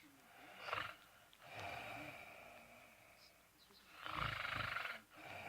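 A dog snoring: three slow snoring breaths, the loudest and most rattling one about four seconds in.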